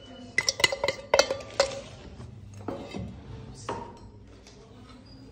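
A steel cup and spoon clink against a steel bowl as spice powder is knocked out of the cup. There is a quick run of ringing clinks in the first second and a half, then a couple of single clinks. After that it is quiet, with only soft stirring.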